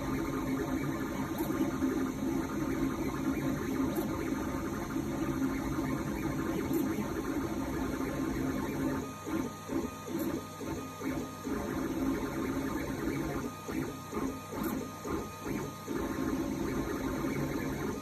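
Geeetech A20M 3D printer running mid-print, its stepper motors and fans giving a steady hum. From about halfway through, the sound breaks into a regular pulsing of roughly two beats a second as the print head moves back and forth.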